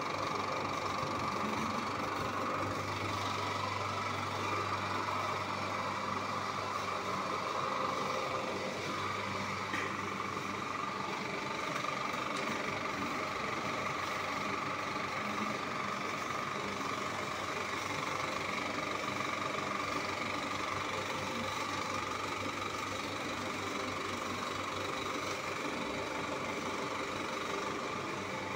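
35mm cinema projector running: a steady mechanical whirr and hum that holds at an even level.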